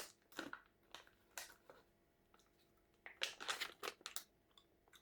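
Faint, scattered crinkles and small crunching clicks in a few short clusters, the busiest about three to four seconds in, from handling and biting into a small strawberry gummy candy.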